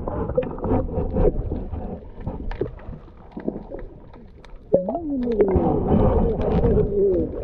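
Sound picked up by a submerged camera: water churning and knocking against it, with muffled, warbling voices carried down from above the surface, loudest from about the middle on.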